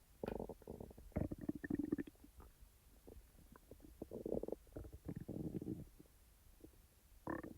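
A person's stomach gurgling and rumbling in about five bursts of rapid bubbling, each half a second to a second long, with short pauses between. These are digestive noises of gas and fluid moving through the gut.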